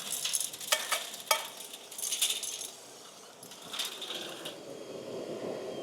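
Metal chips and swarf rattling and clinking as an ECOBULL TAN industrial vacuum with a side channel blower sucks them up through its hose and pickup pipe. The rattling comes in irregular bursts with a few sharp clicks, thins out after about four seconds and fades near the end.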